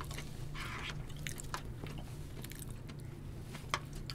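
People chewing food close to the microphone, with a few short light clicks and a brief hiss about half a second in, over a steady low hum.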